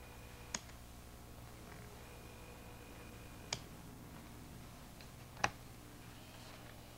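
Quiet room with a steady low hum, broken by three sharp clicks about three and then two seconds apart, the last the loudest.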